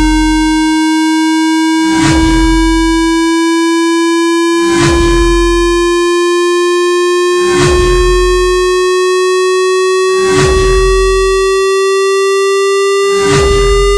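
An electronic hearing-test tone, one steady buzzy note slowly rising in pitch. A soft, deep pulse repeats about every three seconds beneath it.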